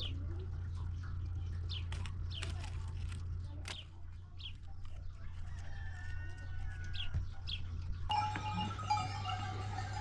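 Farm animals: short high chirps of chickens over a steady low hum, then from about eight seconds in, goats with bells ringing and bleating.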